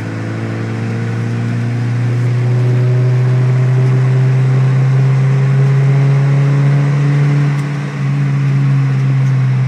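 Ford Escort Cabriolet's engine pulling hard under load, heard from inside the cabin. Its pitch climbs slowly and it grows louder over the first few seconds, then dips briefly about eight seconds in before pulling on.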